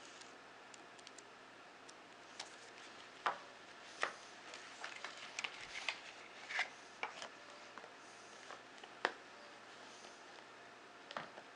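Watch packaging being handled: scattered sharp clicks and taps with small rustles of paper and cardboard, the loudest taps about three, four and nine seconds in.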